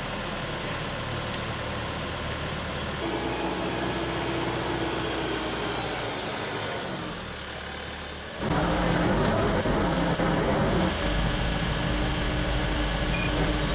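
Tractor engine running steadily. About eight seconds in it suddenly gets louder.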